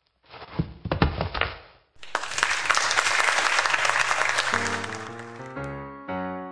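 A couple of low thumps, then an audience applauding, the applause fading as piano music comes in over it.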